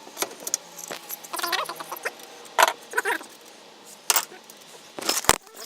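Metal tools clinking and clanking while a car's rear wheel hub is being worked on: a run of short, sharp metallic knocks, a few of them loud, with some brief squeaks in between.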